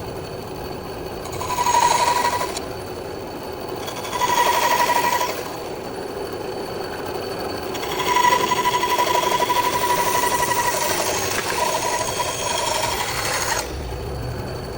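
Mini bandsaw running steadily, growing louder in three spells as the blade cuts through wood. The last and longest spell runs from about eight seconds in until shortly before the end.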